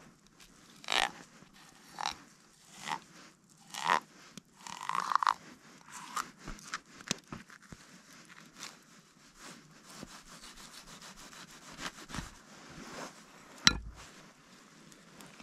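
Knife cutting a fillet off a rainbow trout, the blade scraping along the ribs and backbone in strokes about once a second for the first few seconds, then softer cutting with one sharp click near the end.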